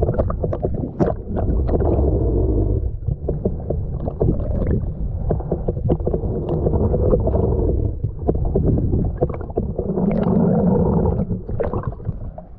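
Muffled water gurgling and sloshing that swells in surges every few seconds, with scattered clicks and knocks.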